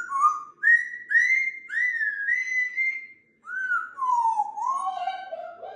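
African grey parrot whistling: a string of short upward-swooping notes at one pitch, then after a brief pause a lower run of notes that steps downward.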